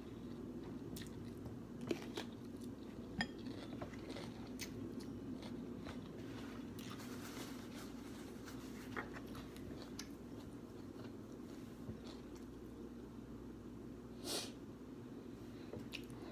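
A person chewing food close to the microphone, with scattered light clicks and crunches and one louder, longer crunch or scrape about 14 seconds in, over a steady low hum.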